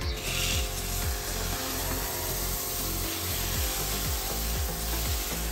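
Foam cannon spraying a steady jet of soapy foam onto a car wheel and tyre, a continuous hiss.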